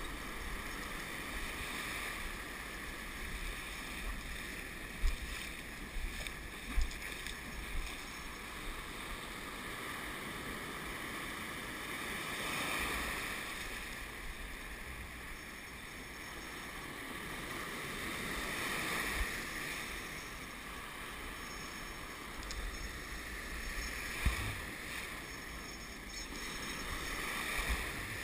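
Ocean surf washing around the wader's legs, waves breaking and running up the beach, swelling and easing every several seconds. A few short knocks stand out, about five seconds in, twice more soon after, and once near the end.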